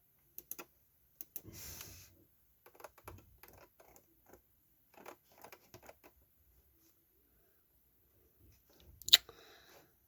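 Scattered light clicks and taps of computer keys at irregular intervals, with a short rustle about two seconds in and one sharp, loud click near the end.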